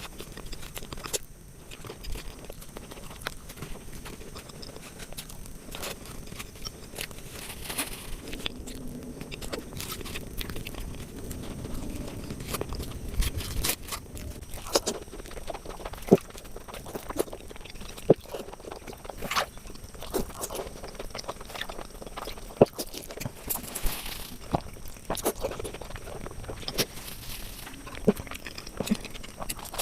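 A person chewing and biting into sweets, with irregular crisp crunches and sharp clicks as the food breaks, loudest in the second half.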